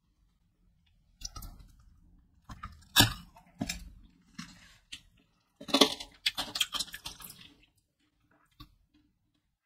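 Pelon Peloneta tamarind hard-candy lollipop being bitten and crunched: a series of sharp cracks and crunches. The loudest crack comes about three seconds in, and a denser run of crunches follows around six seconds in.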